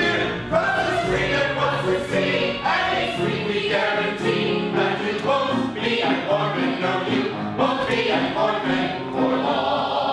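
Music with a group of voices singing together in chorus, held notes changing pitch without a break.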